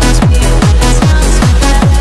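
Electronic dance music with a fast, steady kick drum, about four beats a second, over a deep sustained bass.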